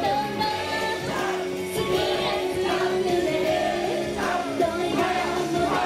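Japanese idol pop song played through outdoor stage PA speakers, with the girl group's female voices singing into handheld microphones over the backing track.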